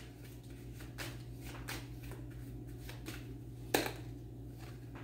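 A deck of tarot cards being handled and shuffled by hand: a run of soft card clicks, with one sharper snap of the cards a little under four seconds in.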